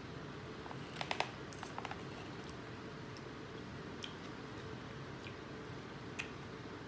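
Eating sounds: a fork picking at food in a takeout tray, giving scattered small clicks and taps, with a quick cluster about a second in. A steady low hum runs underneath.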